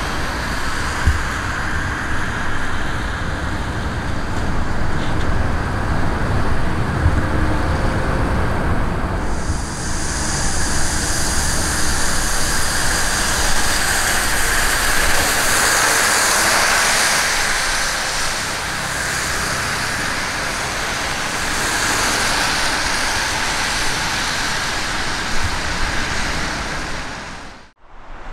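Jet engines of a Luftwaffe Airbus A310 running as the airliner rolls along the runway after landing: a steady, loud rush with a deep rumble underneath. The hiss grows brighter and louder about nine seconds in, and the sound drops out for a moment near the end.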